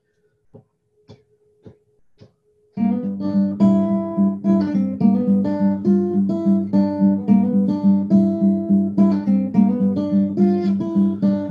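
Four soft taps about half a second apart. Then, about three seconds in, an acoustic guitar starts a steady rhythmic strummed intro.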